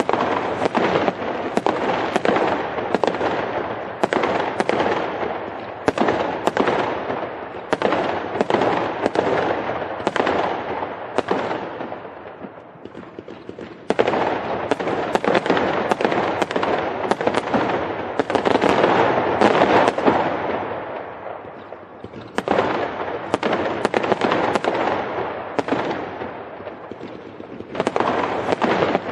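Fireworks going off in quick succession, a dense crackle of bangs and pops that eases off twice, a little before halfway and about three-quarters in, then picks up again.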